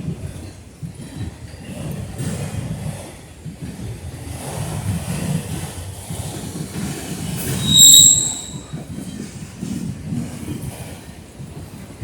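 Norfolk Southern freight train rolling past, its wheels rumbling and clattering on the rails. About eight seconds in, a steel wheel squeals sharply against the rail for about half a second.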